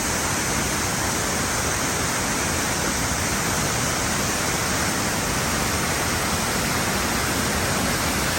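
A waterfall about 60 feet tall running with a heavy flow of water: a steady, even rush of falling water.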